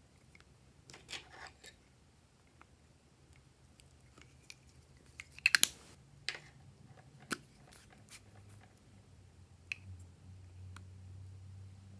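Slime being handled and mixed, making scattered sticky clicks and crackles, with a quick run of sharp pops about five and a half seconds in. A faint low hum comes in over the last few seconds.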